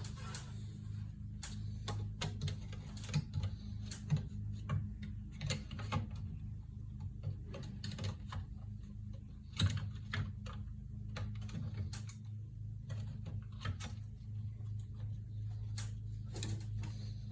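Irregular light clicks and knocks, a few a second with gaps, over a steady low hum.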